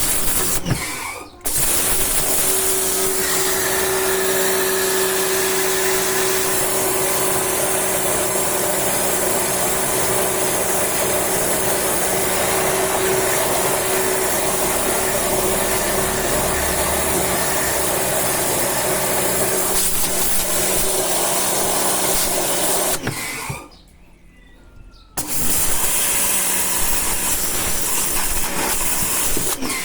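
Jet cleaner (pressure washer) motor and pump running steadily with the hiss of the water jet, stopping for a moment about a second in and for about two seconds near the end.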